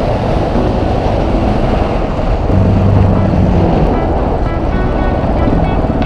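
Trail motorcycle engine running as the bike rides along a dirt track, the engine note rising and falling with the throttle, under heavy wind noise.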